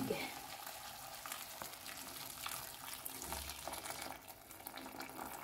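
Water poured into a hot pan of browned chicken, the pan sizzling with a steady hiss and small crackles.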